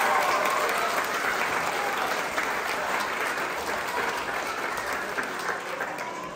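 Audience applauding, the clapping gradually dying away.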